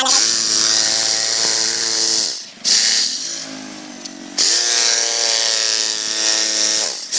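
Corded electric concrete hammer running with its pointed bit driven into concrete, a motor whine over a hard hiss. It eases off for about two seconds around the middle, then winds back up and runs again until just before the end.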